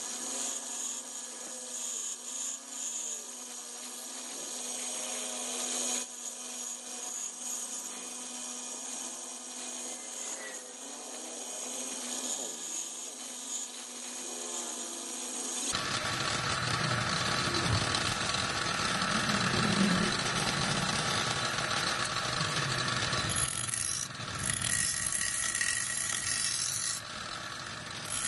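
Pedestal bench grinder running, its stone wheel grinding a small steel part held by hand: a steady motor hum under a rasping hiss. About halfway through the sound turns suddenly louder and rougher.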